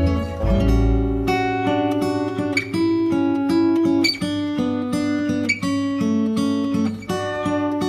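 Background music led by a plucked acoustic guitar, with repeated picked notes over a bass line.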